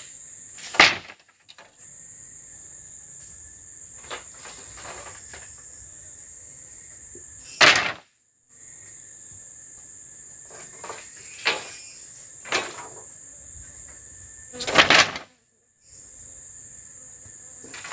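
A steady high-pitched insect chorus drones on throughout, broken by five loud knocks and clatters from handling something at close range, the loudest about a second in and near the end.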